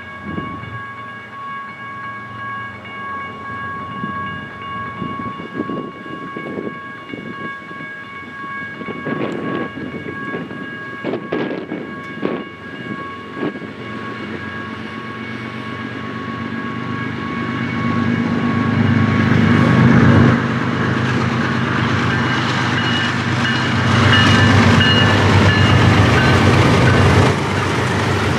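BNSF diesel freight train approaching and sounding its multi-chime air horn for much of the first two-thirds. The rumble of the locomotive engines builds from about halfway and is loudest near the end as the lead units pass.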